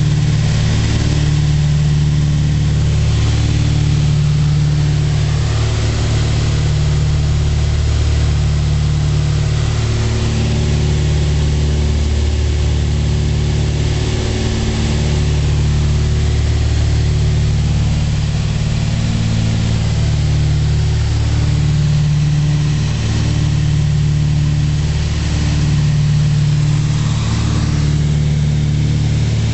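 Cabin noise of a Cessna 310C twin in cruise at 2200 RPM: its two engines and propellers drone steadily, with a slow regular throb, roughly once a second, from the two propellers turning at slightly different speeds.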